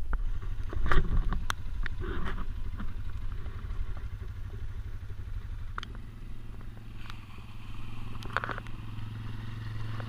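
Quad bike engine running at a low, steady pitch, growing louder toward the end as it approaches. A few sharp knocks and clatters sound in the first couple of seconds.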